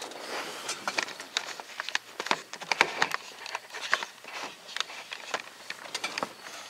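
Irregular light clicks and taps of handling noise as the camera is set down and settled on the pickup's dashboard.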